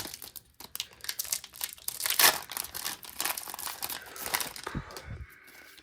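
Foil wrapper of a Pokémon card booster pack crinkling and being torn open, a dense run of irregular crackles, with a short dull thump near the end.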